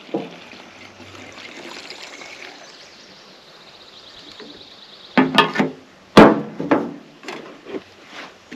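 Spray bottle of WD-40 hissing steadily as it is sprayed onto the sawmill, coating it so pine pitch won't stick. A few short rattles follow about five seconds in, with one sharp knock, the loudest sound, about a second later.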